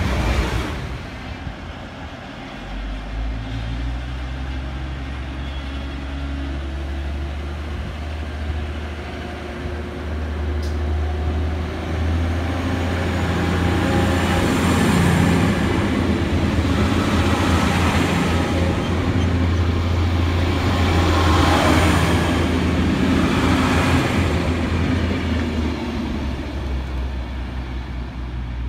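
DB Class 612 diesel multiple unit running past under power: a steady low drone from its underfloor diesel engines. The engine note climbs in steps a few seconds in. Rolling noise builds to its loudest about halfway through as the train passes close, then eases as it moves away.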